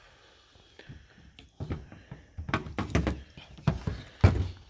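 Scattered knocks and clunks of parts and tools being handled while working on a car door, the loudest a sharp knock near the end.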